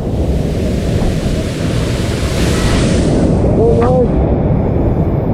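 Waterfall pouring into its pool, a loud, steady rush of water. A short voice call cuts in about four seconds in.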